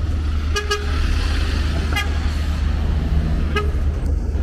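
Vehicle horn giving short toots, a quick double beep and then two single beeps, over a steady low rumble of street traffic.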